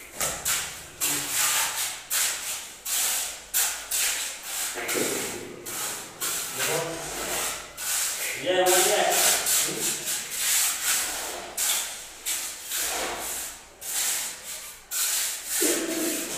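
Hand trowel scraping and smoothing wet cement mortar on a floor in quick, repeated strokes, about two to three a second.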